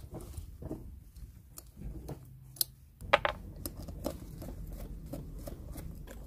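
Small metal clicks and scrapes of a screwdriver and loose parts being worked on a pit bike cylinder head, with a couple of sharper clicks about halfway through, over a low steady background rumble.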